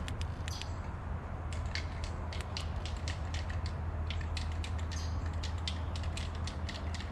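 Irregular small plastic clicks and ticks from handling a truck's PCM wiring connector and its terminal pins, over a steady low hum.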